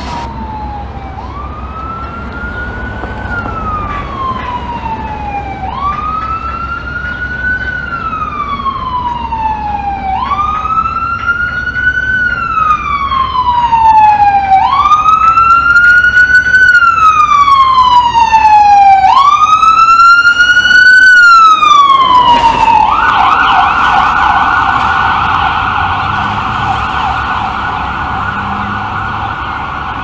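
Fire engine's electronic siren on a wail, each cycle rising quickly and falling slowly, about five cycles growing louder as it approaches. About two-thirds of the way in it gives way to a fast yelp.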